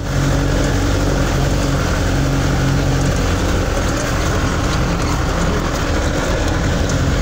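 Van engine running and tyre and road noise, heard from inside the cab while driving on a dirt road; a steady engine hum is clearest for the first few seconds.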